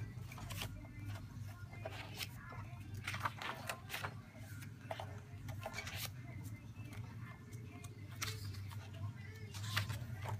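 Paper rustling and page turns as the thick card pages and paper inserts of a spiral-bound notebook are flipped and handled, in irregular crinkles and flaps, over a low steady hum.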